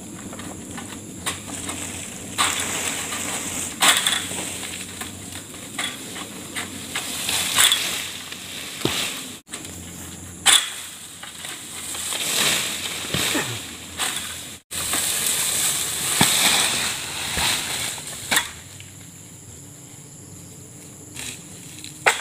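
Long-pole harvesting sickle cutting at oil palm fronds: repeated rasping, crunching strokes and rustling of fronds, with several sharp cracks, dying down over the last few seconds.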